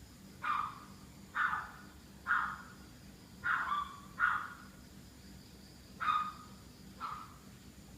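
A dog barking over and over, seven single barks spaced about one second apart with a short gap near the middle. This is the persistent, causeless nuisance barking of a neighbour's pet dog.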